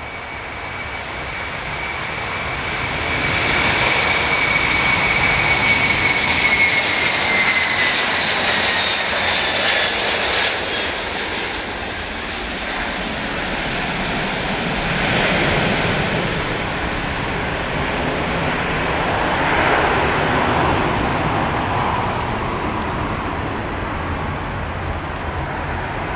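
Airbus A330-300's General Electric CF6-80E1 turbofans at takeoff thrust as the jet rolls past, lifts off and climbs away. It grows louder over the first few seconds; a high engine whine slides down in pitch as the aircraft passes, and the steady engine noise stays loud as it climbs.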